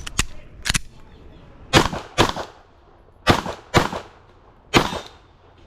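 Glock 19 Gen 5 9mm pistol firing about seven shots, mostly in quick pairs about half a second apart, with roughly a second between pairs.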